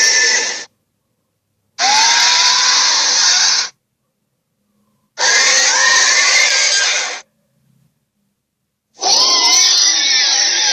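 Giant ape roar sound effects: loud, rough roars with a wavering pitch, played as separate bursts of about two seconds with dead silence between them. One ends about half a second in, and three more follow, the last starting near the end and running on.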